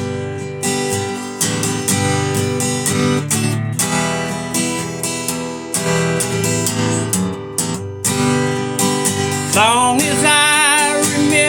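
Acoustic guitar strummed in a steady rhythm, playing the introduction of the song. A held, wavering note joins about ten seconds in.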